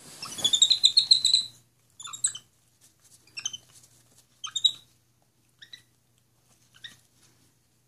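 Capuchin monkey giving high-pitched squeaky whistling calls: a run of rising calls lasting about a second and a half, then five short chirps about a second apart, growing fainter, the kind of whining the owner takes for hurt feelings.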